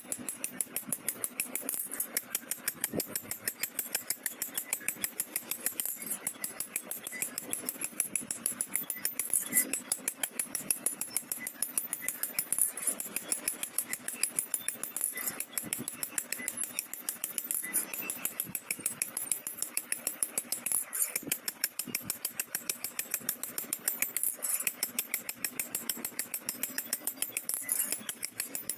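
A fast, even run of short, high clicks or ticks that goes on without a break.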